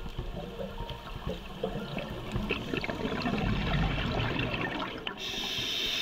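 Scuba diver breathing through a regulator underwater: a long bubbling exhale, then a hiss as the next breath is drawn in, starting about five seconds in.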